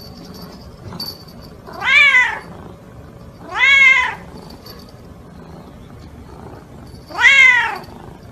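A cat meowing three times while begging, each meow about half a second long and arching up then down in pitch; the first comes about two seconds in, the second a second and a half later, and the third near the end.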